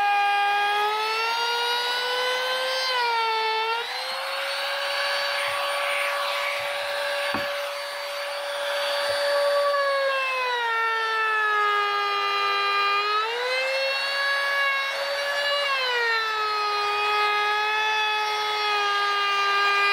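Anesty compact trim router running at full speed while routing the edge of a plywood board: a high, steady motor whine whose pitch drops and climbs back several times as it works along the cut. There is a rougher cutting hiss through the middle stretch.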